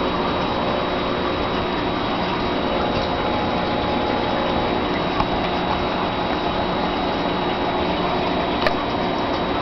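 Aquarium filter pump running: a steady watery rush with a faint hum. Two small clicks, about five seconds in and near the end.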